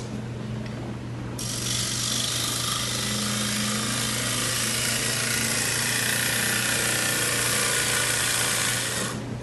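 Wood lathe running with a steady hum while a turning tool takes a long continuous cut along the spinning workpiece, thinning its wall. The cutting hiss starts about a second and a half in and stops just before the end.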